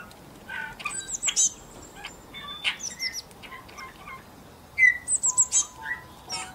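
Small songbirds chirping: scattered short high chirps, with a quick run of high falling notes about a second in and again near five seconds.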